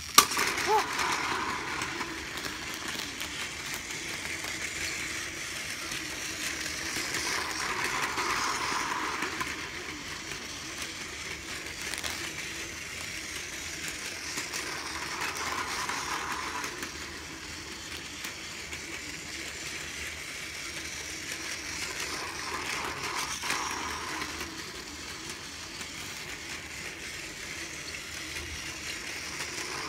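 Battery-powered Plarail toy train running on plastic track: a steady motor whir and wheel rattle that grows louder about every eight seconds.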